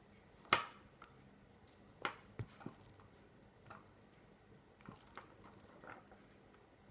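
Faint scattered clicks and taps of a chunky bead necklace and its waxed cord and toggle clasp being handled as a knot is slid down the cord, the sharpest click about half a second in.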